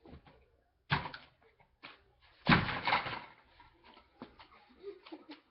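Two heavy thuds, about a second in and a louder one about two and a half seconds in, with lighter knocks and clicks between and after.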